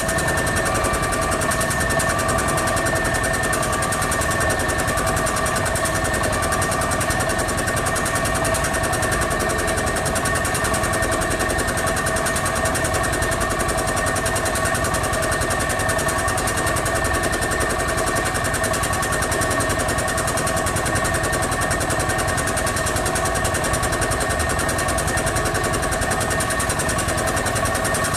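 A KAI diesel locomotive approaching along the line: a steady mechanical clatter with a few constant high tones over it, holding level throughout.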